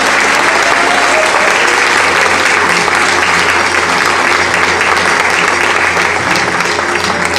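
An audience applauding steadily and loudly in a hall, easing off slightly near the end.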